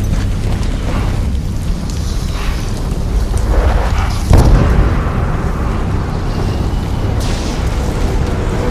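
Film soundtrack of deep rumbling and repeated booming hits over music, with the heaviest boom landing about four seconds in.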